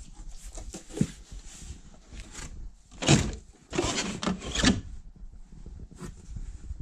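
Cardboard packing inside a bicycle shipping box being pulled and scraped out, in irregular bursts of rubbing and rustling. There is a sharp knock about a second in, and the loudest scraping comes between about three and five seconds in.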